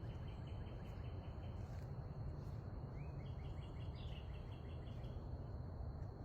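Outdoor nature ambience: a steady low rumble with a small bird repeating quick chirping notes, about five a second. The notes come once at the start and again from about three seconds in until near five seconds. A faint steady high whine runs underneath.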